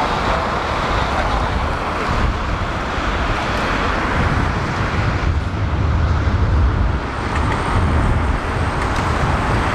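Twin General Electric GE90 jet engines of a taxiing Boeing 777-300ER running at low taxi thrust: a steady jet roar, with a deeper rumble swelling around the middle and a faint high whine coming in near the end.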